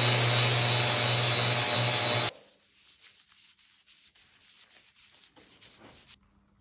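Random orbital sander running on a solid oak tabletop, a steady whir with a low hum, that cuts off suddenly about two seconds in. After it come faint repeated swishes of a paintbrush spreading finish over the bare oak.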